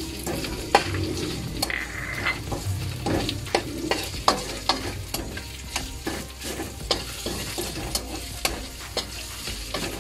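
Garlic and sliced red onion sizzling in oil in a steel wok, stirred with a slotted metal spatula that scrapes and clacks against the pan many times at an irregular pace.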